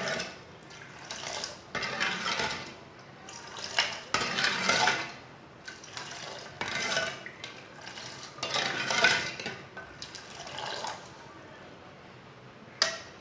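A spoon stirring and scraping around a pan of water with spices, tea leaves, ajwain and sugar, in uneven strokes about once a second with short pauses. A sharp clink of the spoon on the pan near the end.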